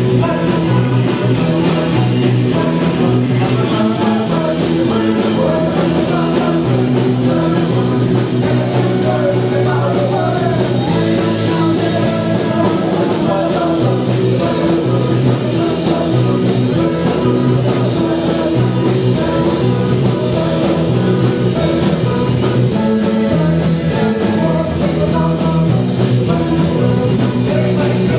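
Rock music with a singing voice, guitar and a steady beat.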